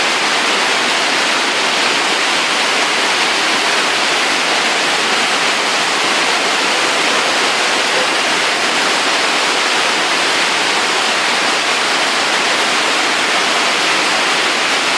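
Heavy rain pouring down, a loud, even hiss without a break.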